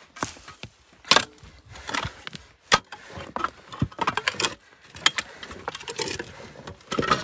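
Mattock blade chopping and scraping into stony soil, a strike about once a second with grit and small stones rattling.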